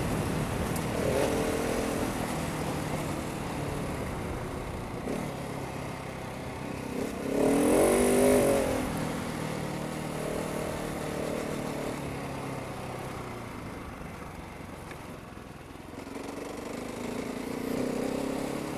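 Husqvarna 701's single-cylinder engine running under way, its revs rising and falling with the throttle. The loudest rev comes about eight seconds in.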